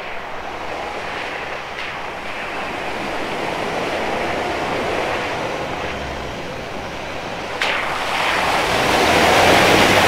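Jeep Grand Cherokee driving along a wet dirt track toward the camera, then hitting a wide puddle. The rush of spray starts abruptly about seven and a half seconds in and is loudest near the end.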